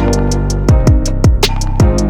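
Background music with a steady electronic beat: a punchy kick drum and regular hi-hat ticks under sustained synth or guitar notes.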